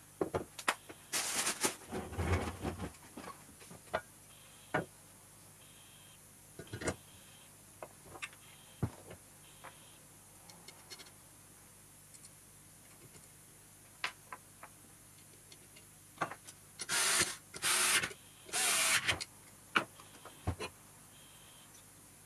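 Hands handling and fitting the hydraulic pump unit of a BMW E38 boot lid onto its metal mounting bracket on a wooden workbench: scattered clicks and knocks of metal parts being set down and fitted, with a stretch of handling noise about 1 to 3 seconds in. Three longer bursts of rustling come close together near the end.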